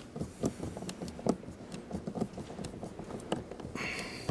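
A screwdriver driving a Phillips-head screw into the plastic door panel: small irregular clicks and ticks, with a brief rasp near the end.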